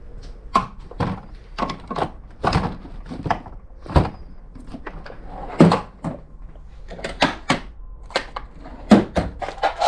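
Irregular knocks, clacks and thumps of hands and tools working a mountain bike tire and wheel, with about a dozen sharp hits.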